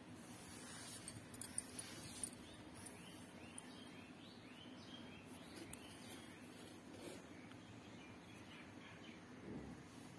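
Small birds chirping faintly in a series of short, repeated calls, over a low steady hum. A few sharp clicks come about one and a half to two seconds in.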